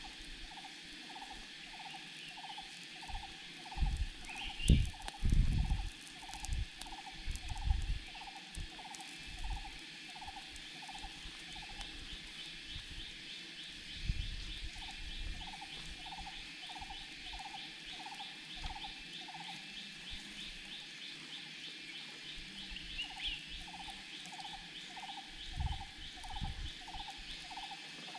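Frogs and insects calling in forest. A mid-pitched note repeats about twice a second, stopping briefly midway and then resuming, over a continuous high insect trill. A few dull low thumps come between about four and eight seconds in.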